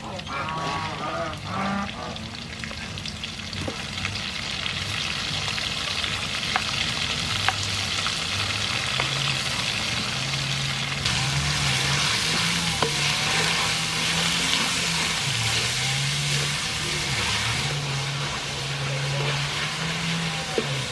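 Chopped pork sizzling in hot soybean oil and garlic in a steel wok, stirred with a wooden spatula. The sizzle grows louder and brighter about halfway through.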